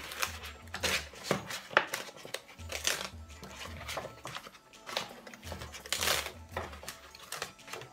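Cut paper being peeled off a sticky plastic cutting mat, crackling and rustling in irregular bursts as the waste paper and the cut tag shapes pull free of the adhesive.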